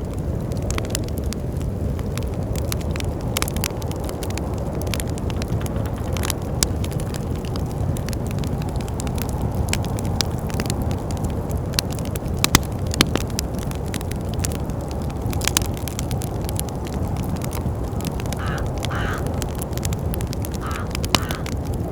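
Wood fire crackling, with sharp pops scattered irregularly throughout, over a steady low rumble of wind. Near the end come two pairs of brief, higher-pitched sounds.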